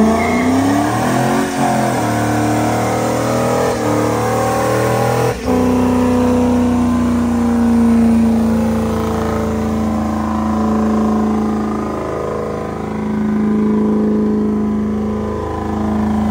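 Ford unibody F-100 pickup doing a burnout, its rear tires spinning and smoking. The engine revs climb over the first couple of seconds, break briefly about five seconds in, then hold at a steady high pitch.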